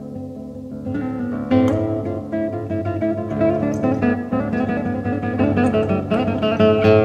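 Solo classical guitar played fingerstyle: notes ring out softly at first, then about a second and a half in a run of quick plucked notes begins and carries on.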